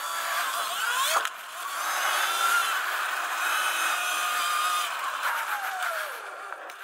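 Sur-Ron Light Bee electric dirt bike's motor whining under throttle over a steady rush of wind and tyre noise. The whine climbs in pitch to about a second in, drops off briefly, holds through the middle, and slides down near the end as the throttle eases.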